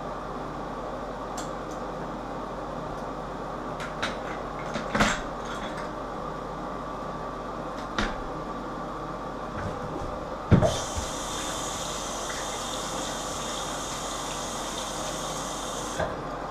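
A few light knocks and clunks as a toilet lid and seat are handled, the loudest about two-thirds of the way in. Then a tap runs with a steady hiss for about five seconds and shuts off abruptly. A steady hum sits underneath.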